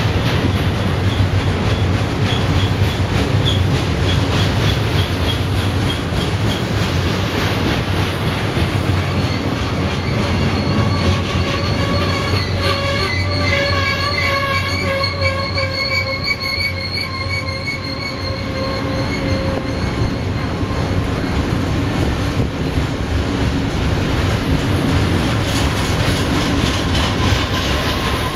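Double-stack intermodal container train rolling past: steady rumble and clatter of steel wheels on rail, with a high wavering squeal from the wheels that grows strongest about halfway through and eases off, returning faintly near the end.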